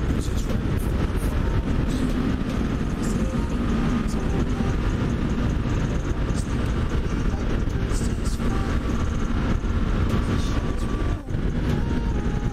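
2021 Yamaha MT-03's 321 cc parallel-twin engine running steadily under way, heard from the rider's position. Near the end there is a brief, sudden drop in the sound.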